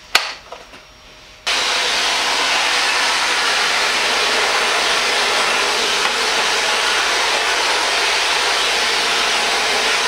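A sharp click, then the Shark NZ801UKT upright vacuum's motor comes in abruptly about a second and a half in and runs steadily, sucking through the extended wand in Powered Lift-Away mode.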